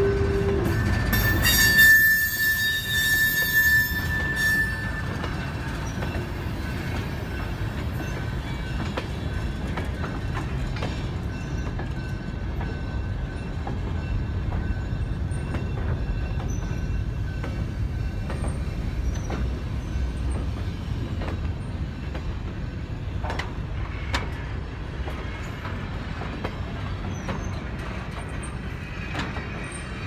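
Train of freight cars rolling slowly past close by: a steady low rumble of wheels on rail, with a high-pitched wheel squeal for a few seconds near the start and occasional clicks as wheels pass rail joints.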